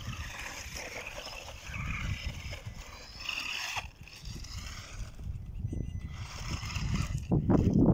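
Wltoys 12428 RC buggy driving over dirt and stones, its electric motor and gears whining and rising and falling with the throttle as the tyres scrabble for grip climbing a rocky bank. A louder rumble builds near the end.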